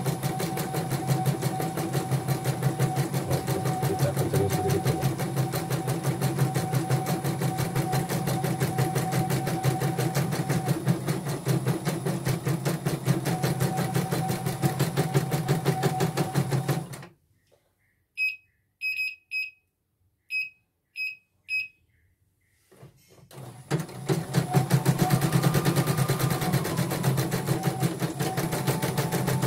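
CNY portable computerized embroidery machine stitching in a fast, steady rhythm on its test run after a mainboard and touchscreen repair. It stops about 17 seconds in, gives about six short high beeps, and starts stitching again about 23 seconds in.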